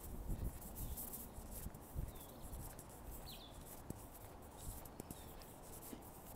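Footsteps of a person walking on a pavement, with wind buffeting the microphone in the first couple of seconds and then easing. A small bird chirps several times in short falling notes.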